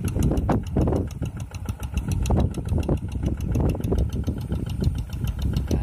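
Quick G1000 two-wheel hand tractor's diesel engine running steadily, with a quick, even knock of its firing strokes, under load in deep mud.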